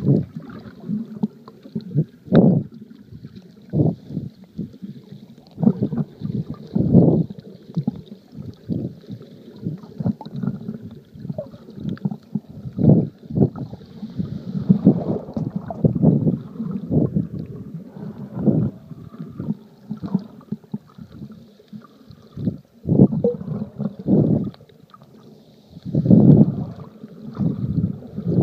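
Muffled underwater water noise picked up through an iPhone's waterproof case: irregular low surges of water movement and sloshing every second or two.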